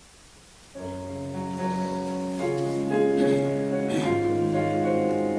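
Piano playing the introduction to a hymn in full chords, starting about a second in after a quiet room.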